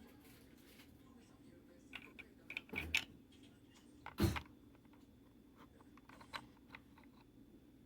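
Small clicks and knocks of parts and tools being handled, with a cluster of clicks about two to three seconds in and the loudest, a single knock, just after four seconds, over a faint steady hum.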